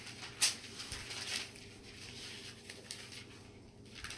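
Thin Bible pages being leafed through by hand: a quick run of papery rustles and flicks in the first second and a half, the loudest about half a second in, then softer scattered rustles.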